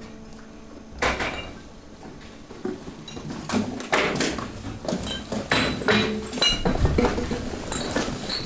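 Waste being crushed in a hydraulic waste compactor: a low steady hum, then from about a second in a busy run of irregular cracks, crunches and clinks as the load breaks under pressure.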